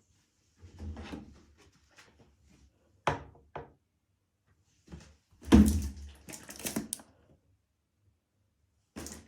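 A series of knocks and heavy thuds in a small room, with sharp knocks about three seconds in and the loudest cluster of thumps a couple of seconds later.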